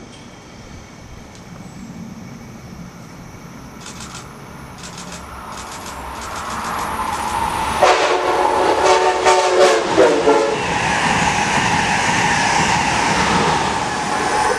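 Amtrak Acela Express high-speed train approaching. Its rumble builds, and about eight seconds in its horn sounds one long blast and then a short one. The loud steady rush of the oncoming train follows.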